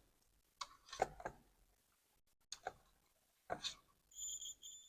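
Several sharp clicks as multimeter test probes are set against the circuit board, then, about four seconds in, the meter's continuity buzzer gives a high beep, broken once, signalling that the probed points are connected (here, to ground).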